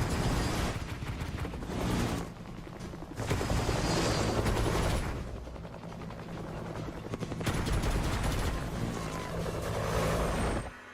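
Helicopter rotor chop over a steady low engine hum, the rapid blade beats swelling and fading in three waves as the sound is panned around.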